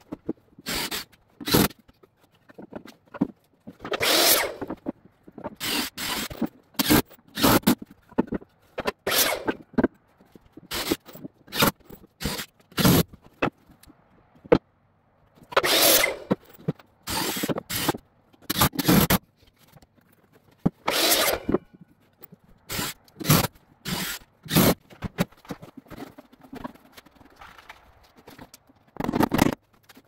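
Cordless drill driving screws into wooden boards in a string of short bursts, with knocks and scrapes of wood being handled between them.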